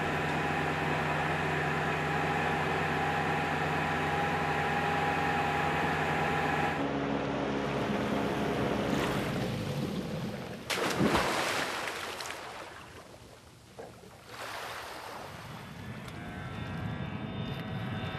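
Motorboat engine running steadily at speed, with rushing water and wind. About seven seconds in the engine sound changes, a sudden loud impact comes about eleven seconds in, the sound then drops low, and an engine hum builds again near the end.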